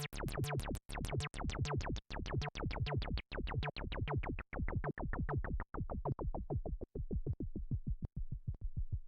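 Behringer UB1 Micro analogue synthesizer playing one of its factory presets: a fast run of short, repeated notes that grows steadily duller and darker, then stops abruptly at the very end.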